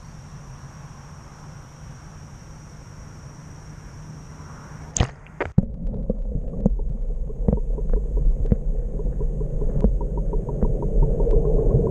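Insects buzzing steadily, then about five seconds in a splash as the microphone goes under the bayou water: after it everything is muffled, a low underwater rumble with scattered clicks and knocks, and a run of quick ticks near the end.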